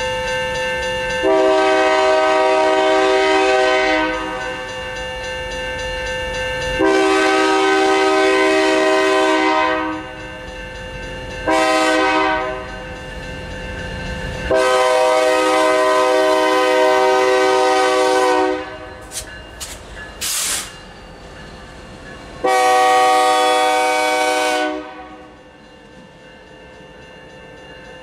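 BNSF diesel locomotive air horn sounding the grade-crossing signal: two long blasts, a short one and a long one, each a chord of several notes, then one more long blast near the end. Underneath, the crossing's warning bell rings steadily.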